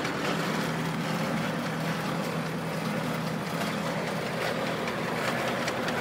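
Kubota M8200 tractor's diesel engine running steadily, turning the PTO shaft that drives the logging winch.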